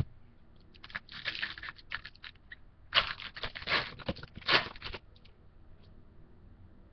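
Foil wrapper of a Bowman baseball card pack crinkling and tearing as it is ripped open, in two spells of crackling, the louder one from about three to five seconds in.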